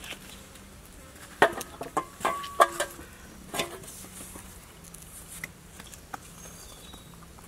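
Fowl clucking: a handful of short calls in quick succession, from about a second and a half to nearly four seconds in.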